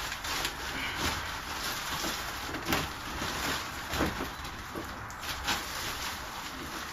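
Plastic and bubble wrapping rustling and crinkling as it is pulled off a kayak, with a few sharp clicks.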